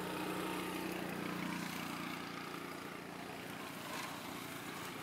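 A motor engine running with a steady hum that fades after about two seconds.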